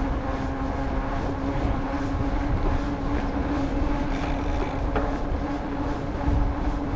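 Mountain bike rolling along wet pavement: a steady hum with one held pitch over a low rush of wind on the microphone.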